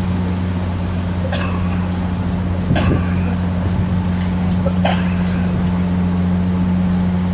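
GVB passenger ferry's diesel engines running with a steady low drone as the boat manoeuvres at the landing. Three brief sharper noises come through about one and a half, three and five seconds in.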